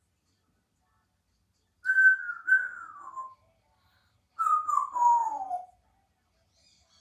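Congo African grey parrot whistling two phrases that glide downward in pitch, about two seconds apart; the second phrase is lower and longer.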